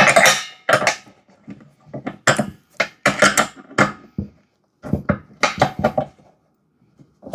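Irregular metal clinks and clatter of tools and hardware being handled during assembly of an air compressor, in short bursts with brief quiet gaps.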